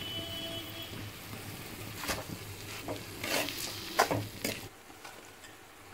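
Poha frying in a metal kadhai, stirred with a steel spoon that scrapes and clinks against the pan several times from about two seconds in.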